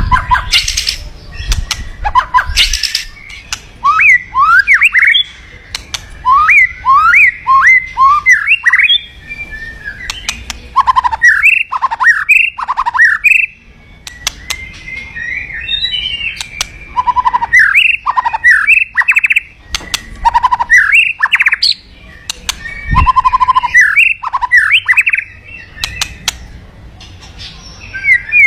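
White-rumped shama (murai batu) singing loudly: phrases of quick whistled notes sweeping up and down, broken by short pauses, with a few sharp, harsh notes in the first few seconds.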